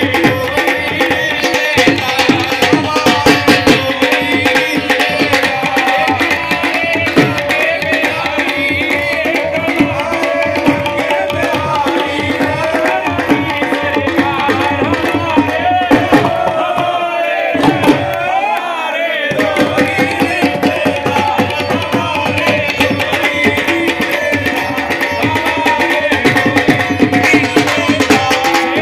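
Live Indian folk music amplified over a sound system: a hand drum keeps a fast, steady rhythm under a man singing into a microphone, with the crowd clapping along.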